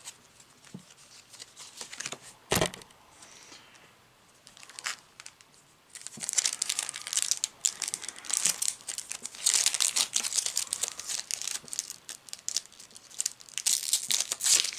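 Foil Yu-Gi-Oh booster pack wrapper being torn open and crinkled by hand. Crackly crinkling comes in bursts from about six seconds in, after a quieter start with a single sharp tap.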